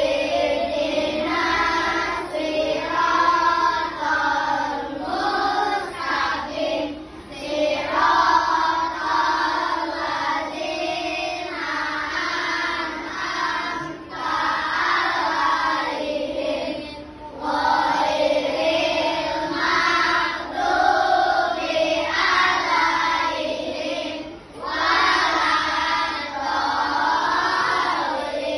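A group of children singing together in phrases a few seconds long, with brief breaks between them.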